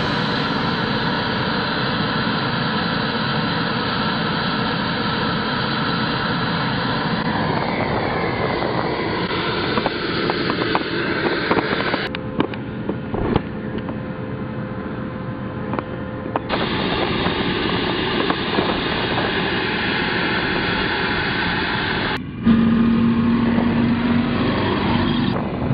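Armoured tracked vehicles running: steady heavy engine noise with track clatter. The sound changes abruptly several times. Near the end an M113 armoured personnel carrier drives past with a steady low engine drone.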